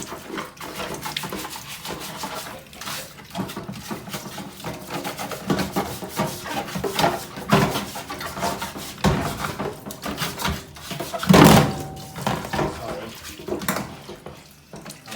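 Washing-machine parts being scrubbed and handled with water: irregular scraping, rubbing and clattering of plastic, with one louder knock about eleven seconds in.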